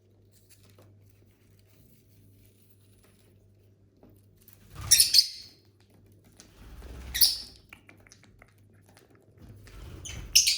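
Pet lovebirds giving three short, shrill calls a few seconds apart, with faint clicks and rustling in between.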